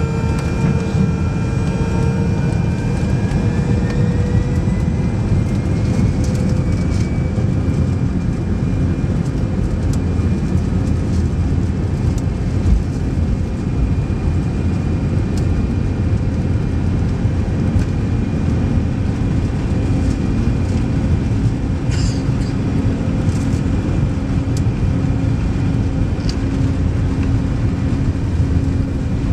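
Airbus A319 jet engines heard from inside the cabin: a loud, steady rumble with a whine that rises in pitch over the first several seconds and then holds steady, as the engines spool up to high power.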